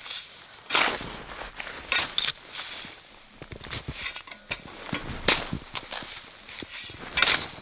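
Snow shovel cutting into and scooping snow in irregular strokes, each a short crunch about every second or two.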